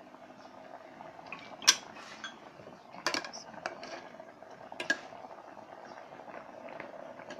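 Metal ladle clinking against the side of an aluminium pot while stirring a simmering curry: four sharp clinks in about three seconds, the first the loudest, over a steady low hum.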